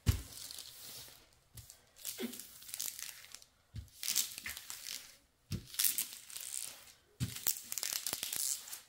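Thin plastic cover film on a diamond painting canvas crinkling and rustling in irregular bursts as hands pull it back from the glue and smooth it down, with a thump right at the start.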